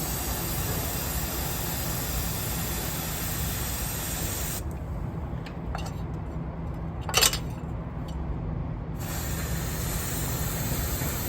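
Aerosol can spraying onto the gearbox in a steady hiss, which stops about four and a half seconds in and starts again about four seconds later. A single sharp knock, the loudest sound, comes during the pause.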